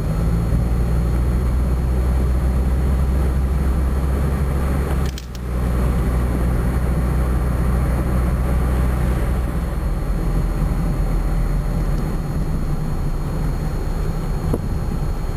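Car driving heard from inside the cabin: a steady low rumble of engine and tyre noise, dipping briefly about five seconds in.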